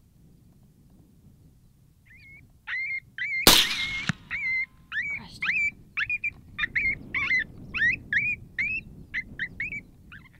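A run of high, short yelping calls, each gliding upward, about two to three a second. One sharp crack is the loudest sound, about three and a half seconds in.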